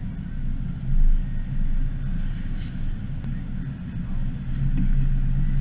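Fox-body Mustang's 5.0 V8 running at low speed in slow street traffic, a steady low engine note with a swell about a second in. A brief hiss comes about two and a half seconds in.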